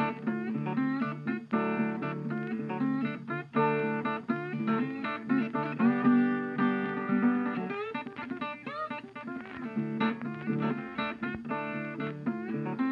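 Background music led by a plucked guitar, a steady run of notes with some bending pitches partway through.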